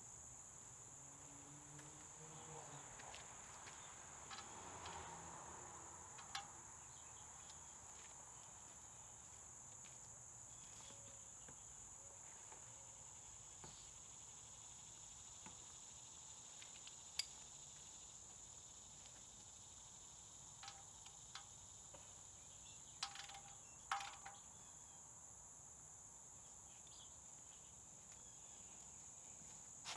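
Faint, steady high-pitched chirring of insects, with a few soft clicks and taps scattered through it, the loudest a couple of taps about three-quarters of the way in.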